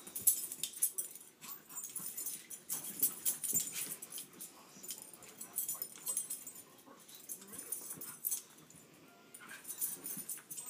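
Two West Highland white terriers play-fighting, making short dog sounds and scuffles in irregular bursts.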